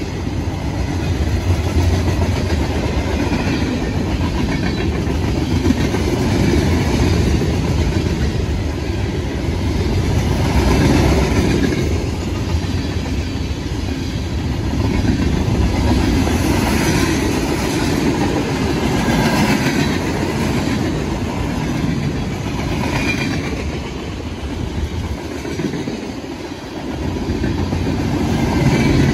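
CSX freight train rolling past, its cars making a continuous sound of steel wheels on rail. The sound dips briefly near the end, then rises again.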